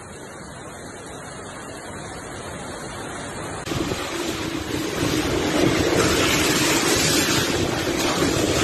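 Heavy rain and floodwater running through the streets, a steady rushing hiss that grows louder. About four seconds in it turns abruptly louder, with wind buffeting the microphone.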